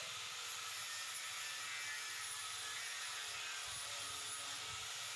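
Handheld electric angle grinder with an abrasive disc running steadily while it is pressed against a steel tubular railing, sanding down the polyester putty spread over the welds.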